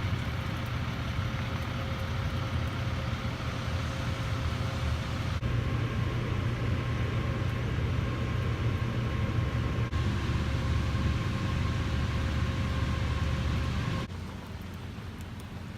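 Motor vehicle running: a steady low rumble with a faint steady hum. It changes abruptly a few times and turns quieter about 14 seconds in.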